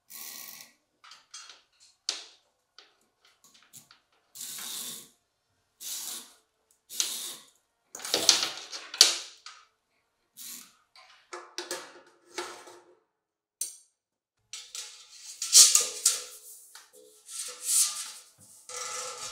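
Intermittent rattles, clicks and clanks of steel cable hangers being adjusted and a round metal duct pipe being lifted into them. Some of the clanks near the middle and the end leave a short metallic ring.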